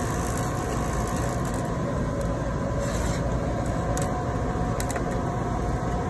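Steady hum and fan noise of a Fisher Scientific Isotemp 1016D refrigerated circulating water bath running, with a few faint light clicks about four to five seconds in.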